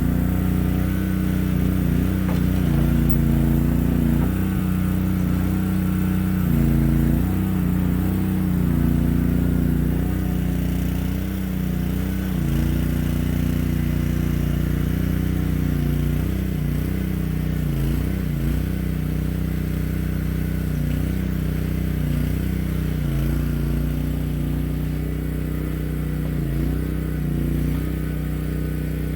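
Boxer 320 mini skid steer's engine running steadily, its pitch dipping briefly several times as it takes on load.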